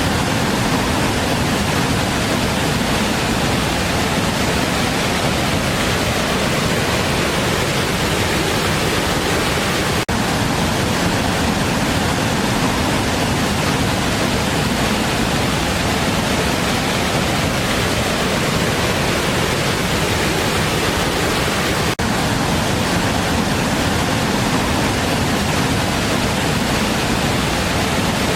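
Large waterfall: a loud, steady, even rush of falling water, with two momentary dips about ten and twenty-two seconds in.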